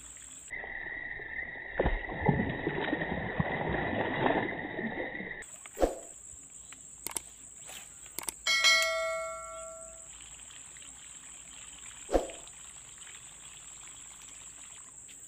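Subscribe-button sound effect: a few sharp mouse clicks, then a ringing notification-bell chime that fades over about a second, roughly halfway through. Before it, a few seconds of hissing noise with a steady high whine.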